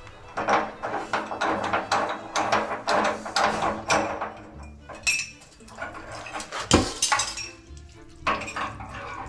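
Quick, irregular clinking and clattering of hard objects against metal, with one louder knock near the end; music plays underneath.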